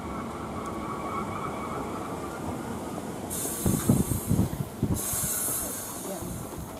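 Electric multiple-unit train running by: a steady rumble with a faint whine. About three and a half seconds in come several heavy knocks and two spells of loud hiss.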